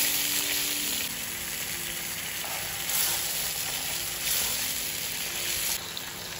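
Teriyaki sauce of soy sauce, onion and garlic sizzling and bubbling in a nonstick frying pan as it reduces and thickens, stirred with a wooden spatula. The sizzle swells a few times and turns quieter near the end.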